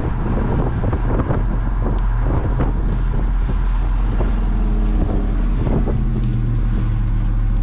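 Car driving at speed: steady low engine and road noise, with wind buffeting the microphone.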